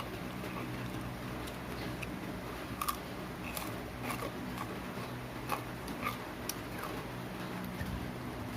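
Crispy pata's deep-fried pork skin cracking and crunching as it is eaten: irregular sharp crunches over a low steady hum.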